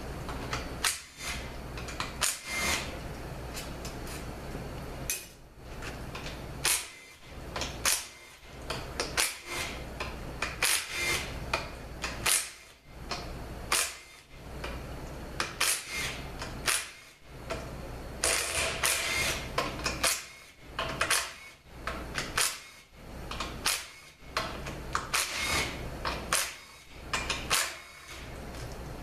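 Hand tool working the valve-body bolts of a 41TE (A604) automatic transaxle: a long run of sharp metal clicks, roughly one or two a second, broken by a few short rattling bursts as the bolts are loosened.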